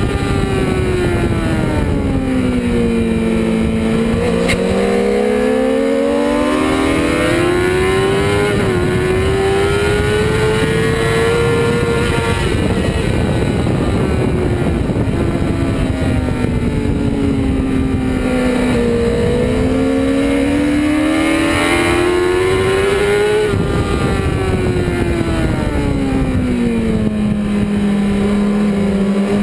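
Honda CBR600 sport bike's inline-four engine heard on board at track speed, its pitch falling while slowing for corners (at the start, in the middle and near the end) and climbing again as the throttle opens. A steady rush of wind runs under it.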